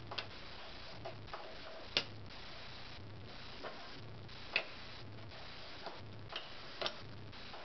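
Light, irregular clicks and taps of hand tools and metal faucet parts as a faucet is taken apart to get at its cartridge. The sharpest clicks come about two seconds in and about four and a half seconds in.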